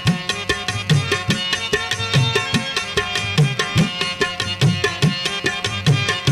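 Instrumental break in a song: a quick, steady hand-drum pattern whose bass strokes bend in pitch, under a sustained melodic instrument line, with no singing.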